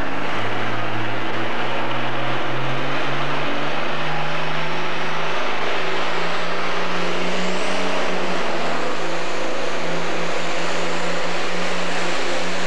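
Turbocharged diesel pro stock pulling tractor at full throttle, pulling the sled down the track. The engine note climbs steadily over the first half and then holds high.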